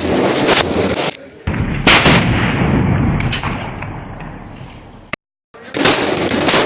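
Rifle shots at a shooting range, several in a row. A loud one about two seconds in has a long, echoing tail that fades over a few seconds. The sound drops out completely for a moment about five seconds in.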